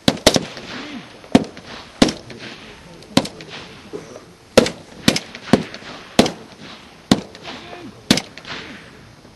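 Military rifles fired in single shots by a section lying prone, laying down suppressive fire: about a dozen sharp cracks at uneven intervals, roughly one a second, each with a short echo.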